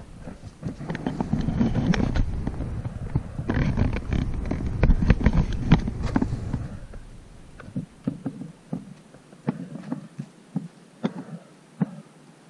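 Airedale Terrier puppies moving about right at the microphone: a rumbling, knocking jumble of close contact for the first six seconds or so. After that, scattered light clicks and taps as they sniff and step about the stone patio.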